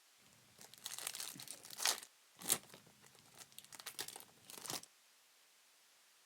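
Plastic wrapping crinkling and tearing as a sealed trading-card pack or box wrap is ripped open, in several quick spells with one sharp crack about two and a half seconds in; it stops before the last second or so.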